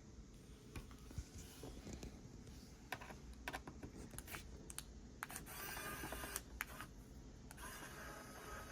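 Faint handling sounds of small tools and hands working on a laptop: scattered light clicks and taps, with about a second of scraping just past five seconds in and again near the end.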